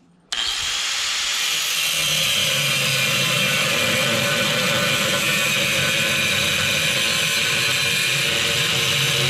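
Corded electric angle grinder starting abruptly a moment in, then running steadily with a high whine as it grinds into a steel flat bar.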